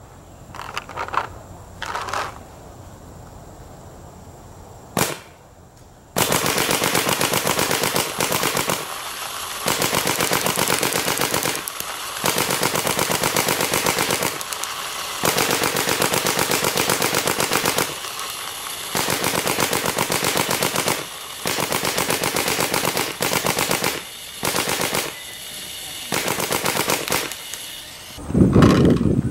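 Chrome-plated Adrenalin Angel LCD electropneumatic paintball marker firing. A single shot comes about five seconds in, then from about six seconds on there are long, very rapid strings of shots broken by short pauses.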